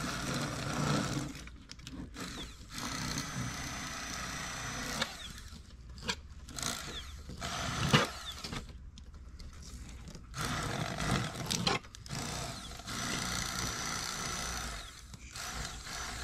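Electric fillet knife running in several spurts of a few seconds each, its motor buzzing as it cuts bluegill fillets, with short pauses between.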